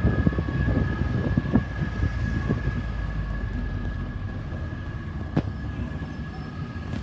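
Low rumble of road traffic going by, easing off slightly, with a steady faint high whine over it and a single sharp click about five seconds in.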